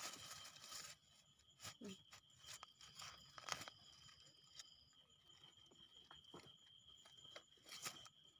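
Faint crunching and scraping of soil as a knife and fingers dig termite mushrooms out of the forest floor, with a few sharper scrapes among them. A steady high insect trill runs underneath.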